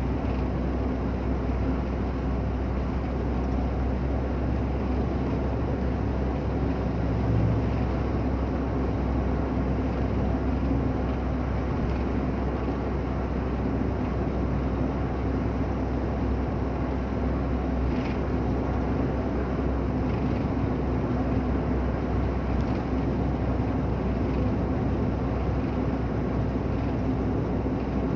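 A car driving on a wet road, heard from inside the cabin: steady engine and tyre noise with a low rumble and a faint steady hum.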